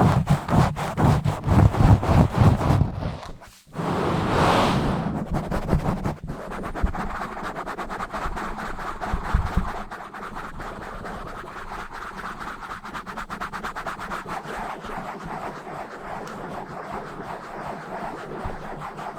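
Fast, rough scratching directly on a microphone: dense rapid strokes for the first three seconds or so, a brief pause, a smoother rub for about two seconds, then lighter, finer fast scratching that is quieter for the rest.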